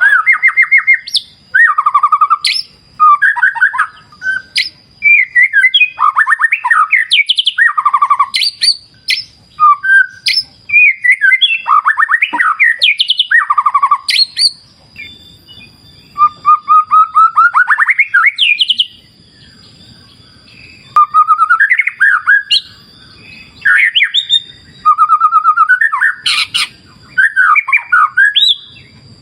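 White-rumped shama singing loud, varied phrases of rapid trills, buzzy notes and slurred whistles, in bursts with short pauses, over a faint steady high whine.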